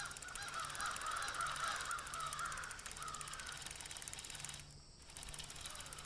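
Faint background nature ambience of birds calling, with wavering honk- and caw-like calls. The sound briefly cuts out about three-quarters of the way through.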